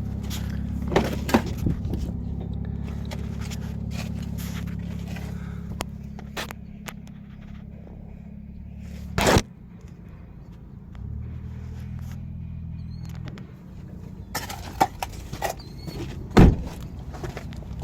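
An engine idling steadily with a low hum, with sharp knocks and clunks on top, the loudest about nine and sixteen seconds in.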